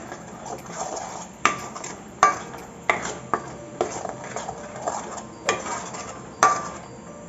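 A steel spoon stirring and scraping thick masala paste in a stainless steel kadai, clinking sharply against the pan about six times. The paste is being sautéed with freshly added spice powders.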